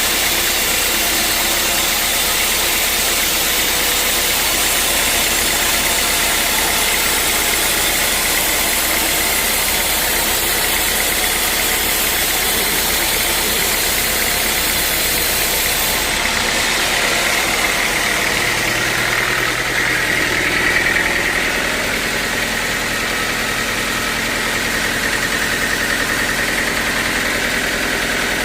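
Sawmill machinery running steadily, an engine-driven mill with a dense hiss; the high hiss drops back a little over halfway through.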